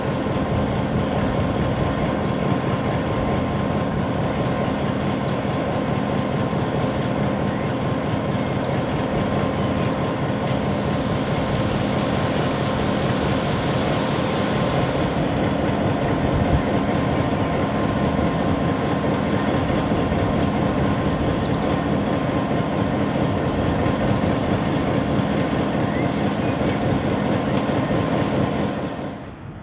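Clyde/EMD G6B diesel-electric locomotive with its six-cylinder EMD 567 engine, idling steadily while standing still; the sound fades out near the end.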